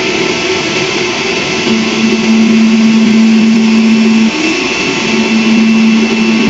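Kenwood centrifugal juicer's motor running on its strong setting, spinning the grater basket, with a steady whine. Twice a deeper hum joins in for a second or two and the sound grows louder.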